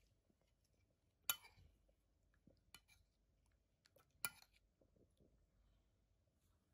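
Metal serving spoon clinking against a ceramic bowl while scooping curry: two sharp clinks about three seconds apart, with a few faint taps between.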